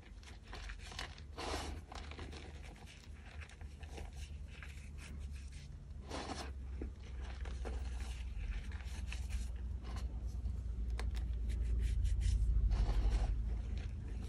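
Bare hands squeezing and crumbling soft, powdery gym chalk and its small chunks: a run of soft crunches and rubbing scrapes. A low rumble swells under it about twelve seconds in.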